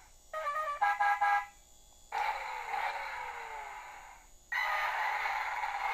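DX Drive Driver toy belt playing electronic sound effects through its small speaker: a short jingle of beeping tones about half a second in, then hissing bursts with a falling tone, about two seconds in and again about four and a half seconds in.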